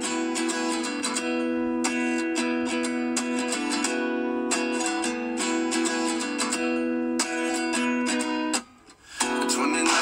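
Background music: a strummed acoustic guitar playing steady chords, dropping out for about half a second near the end.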